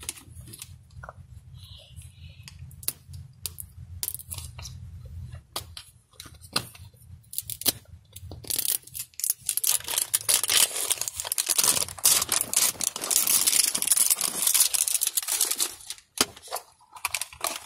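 Plastic toy packaging being handled and opened: scattered clicks and taps on a hard plastic Pikmi Pops case, then from about halfway several seconds of loud crinkling and tearing of plastic wrapping.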